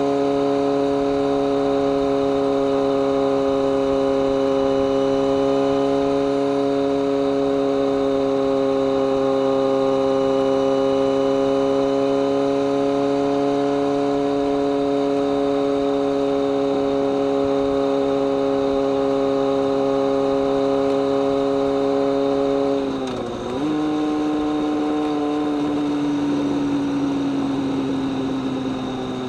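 BMW K1200R Sport's inline-four engine and exhaust running at a steady speed under way. About three-quarters of the way through the note breaks briefly, like a gear change, then comes back and its pitch slowly falls as the bike slows.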